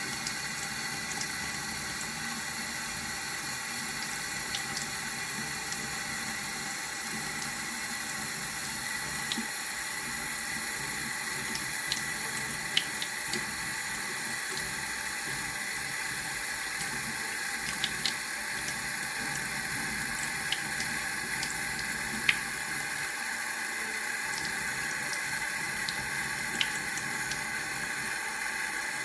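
Water running steadily from a tap, with a few faint, sharp clicks scattered through it.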